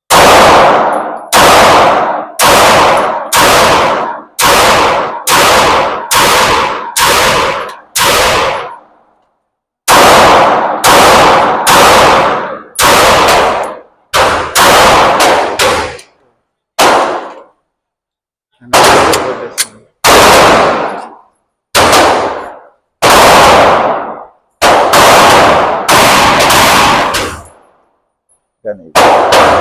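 Handgun shots fired steadily at about one every three-quarters of a second, in three strings with two short pauses, each sharp report ringing off the walls of an indoor range.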